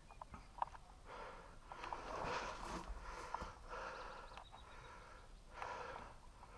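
A person breathing close to the microphone, slow breaths coming every second or two, with a few faint clicks about half a second in.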